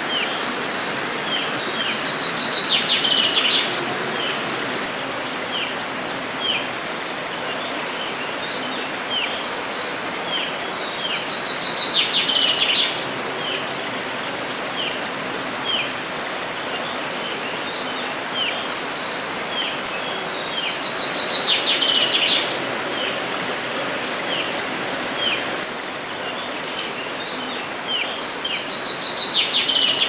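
Shallow forest stream running steadily, with songbirds singing over it. A rapid trill swells about every nine to ten seconds, alternating with a short high buzzy phrase, and short chirps are scattered throughout.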